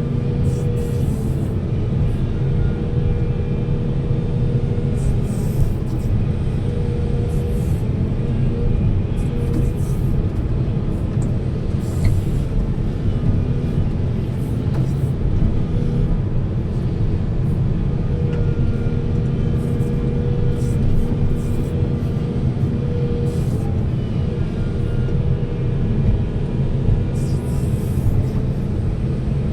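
Heavy diesel machinery running steadily, with a higher whine that comes and goes several times.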